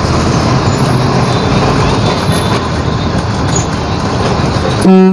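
Steady, loud road and traffic noise on the move, then one short, loud vehicle horn honk near the end that cuts off sharply.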